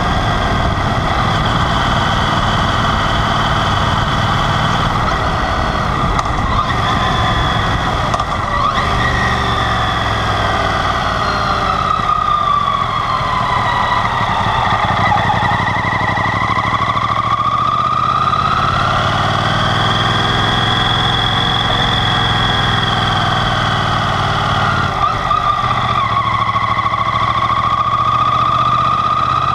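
Yamaha TDM 850 (4TX) parallel-twin motorcycle engine running on the move, heard from low on the bike with wind and road rush. The engine note sinks slowly as the bike slows, climbs again as it pulls away and holds steady. Near the end it drops quickly and climbs again.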